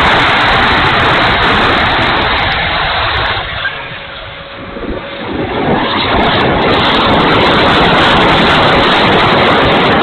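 Rushing airflow and the electric ducted fan of an E-flite F-16 70mm model jet, heard through a camera mounted on the airframe, with a faint steady whine under the wind noise. The rush dies down for about two seconds in the middle, then builds again.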